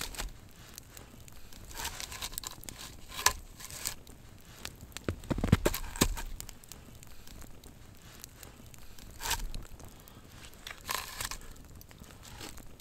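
Campfire crackling while boots crunch and shuffle in snow beside it, broken by scattered rustles. A cluster of louder knocks about halfway through as things are set down on the fire.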